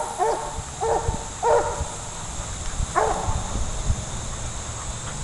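A dog barking in short, pitched barks: a quick run of four in the first second and a half, then one more about three seconds in.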